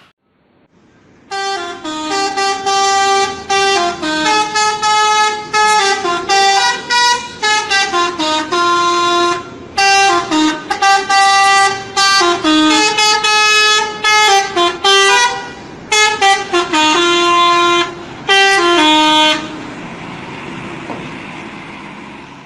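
Bus 'telolet' multi-tone air horn playing a tune: loud notes stepping up and down in repeated phrases with short breaks. It starts about a second in and stops near the end, leaving a steady rushing noise for the last few seconds.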